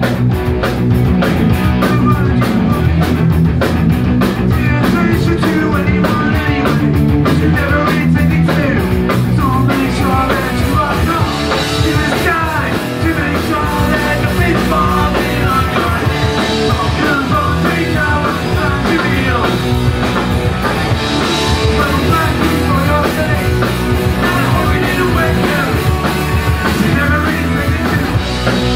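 A live punk rock band playing loudly: electric guitars, bass and drum kit. A fast, even cymbal beat runs through the first third, then cymbal crashes ring out every few seconds.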